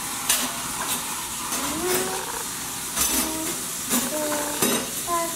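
Food sizzling in a pan on the stove: a steady frying hiss, with a few sharp clicks of cutlery against dishes.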